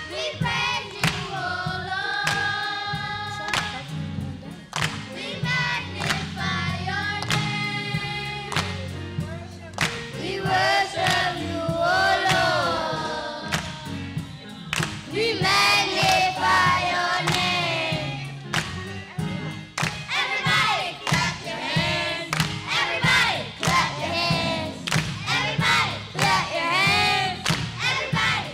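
Children's choir singing a gospel song with accompaniment, over a steady percussive beat that gets busier in the second half.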